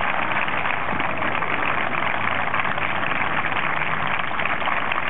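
Crowd of spectators applauding: dense, steady clapping.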